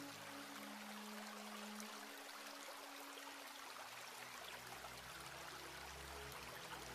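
Quiet background music of held low notes that change every second or two, over a steady hiss like running water.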